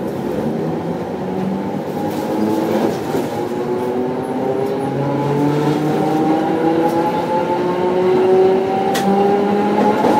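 Tosa Electric Railway 700-series tram accelerating: the whine of its nose-suspended (tsurikake) traction motors and gears rises steadily in pitch as speed builds, over the running noise of the wheels on the rails.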